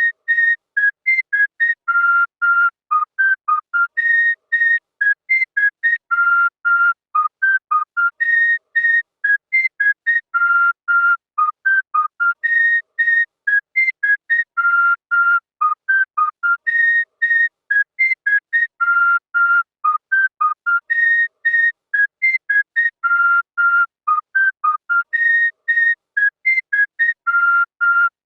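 A short whistled tune of quick, separate notes, repeated in a loop about every four seconds.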